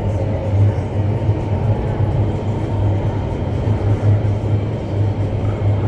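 Indoor skydiving wind tunnel running at flying speed: the steady roar of the rushing air and the fans, with a deep, slightly pulsing hum underneath, heard through the glass wall of the flight chamber.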